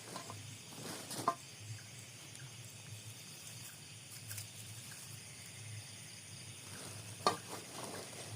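Night-time outdoor ambience of insects, such as crickets, trilling steadily in several high tones, with a faint low hum underneath. Two sharp snaps or clicks stand out, one about a second in and one near the end.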